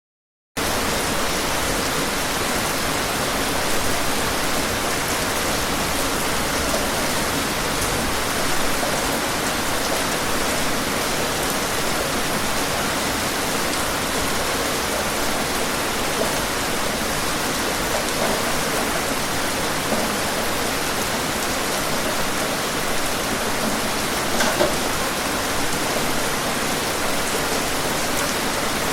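Steady rain, an even hiss with scattered drops hitting a surface. It starts abruptly from silence about half a second in.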